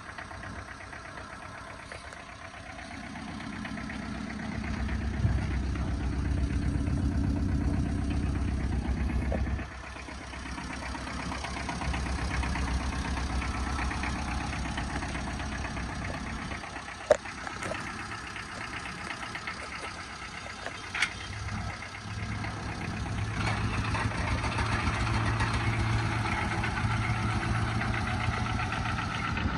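Tata Ace mini truck's small diesel engine idling steadily, growing louder and softer in stretches, with two sharp clicks in the second half.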